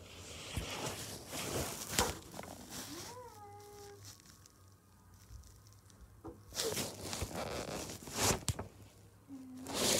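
Rustling, scraping and knocks of a phone being handled and slid about over carpet and bedding, close to the microphone. About three seconds in, a brief pitched tone rises and then holds for about a second; a lower, shorter one comes near the end.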